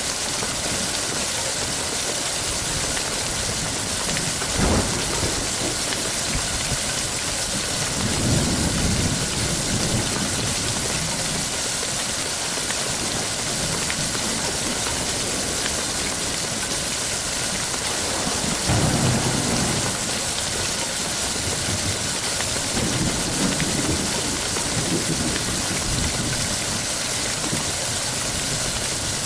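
Steady rain hissing, with thunder rumbling three times, about eight, nineteen and twenty-three seconds in, and a single sharp crack about five seconds in.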